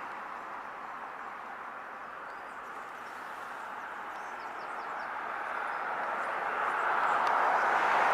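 Rushing noise of a passing vehicle, growing louder toward the end.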